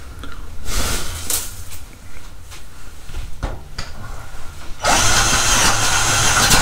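SnapFresh 20V cordless drill on low speed boring a 1¼-inch hole in a thick wooden beam with a spade bit: the motor runs under heavy load as the bit chews through the wood. The cutting is uneven at first, then louder and steady from about five seconds in.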